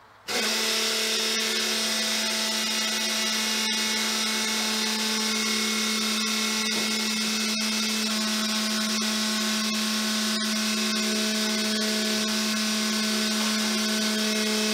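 Electric fuel pump switched on and running steadily with an even electric whine, pressurizing the fuel system so the lines can be checked for leaks before the first start. It cuts in abruptly just after the start, with a few faint clicks over it.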